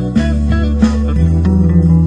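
Instrumental background music led by guitar, with a bass line underneath.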